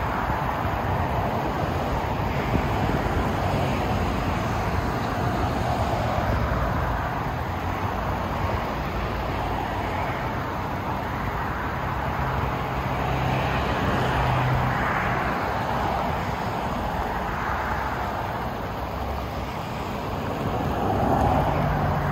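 Steady road traffic noise, with vehicles swelling past one after another and low engine hum heard as some go by.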